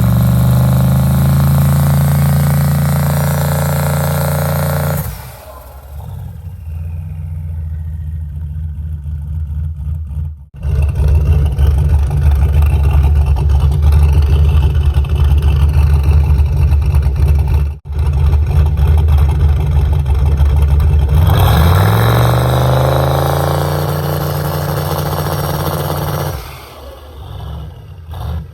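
Turbocharged V8 street car's engine accelerating hard, its pitch climbing and then levelling off twice, with steadier running in between.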